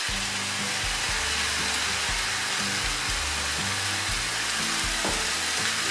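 Chopped zucchini flesh and softened onion sizzling steadily in olive oil in a frying pan, with background music playing low notes underneath.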